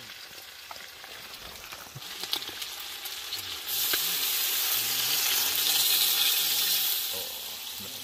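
Large aluminium pot of birds boiling and hissing over a fire. About four seconds in, water poured from a plastic jug into the hot pot sets off a much louder splashing hiss that lasts about three seconds, then falls back.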